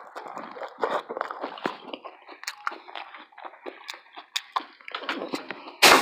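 Close-miked chewing and biting of a vegetarian taco: irregular wet mouth clicks and smacks, with a louder crunch-like burst near the end.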